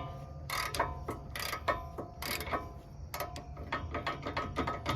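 Hand tools working on a car's front suspension: a ratchet wrench clicking in short strokes, with sharp metallic clinks, some briefly ringing, as bolts on a newly fitted lower control arm are tightened.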